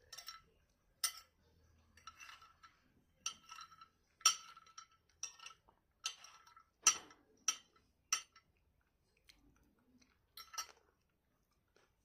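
Metal cutlery clinking against a plate during a meal: about a dozen sharp, irregular clinks, several with a short ring.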